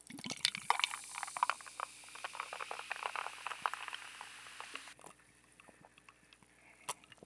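Carbonated zero tonic water poured from a plastic bottle into a glass over ice, fizzing with a steady hiss and many small crackles for about five seconds. It then fades to near quiet with a few faint ticks.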